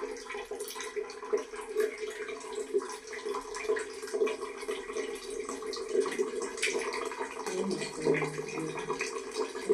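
Water and cleaning liquid spraying and splashing over washing-machine parts, with the steady hum of a motor running underneath.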